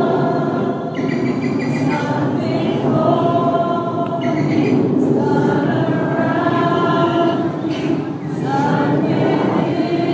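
A group of voices singing together in slow, held notes, like a chant, with the pitch changing every second or two.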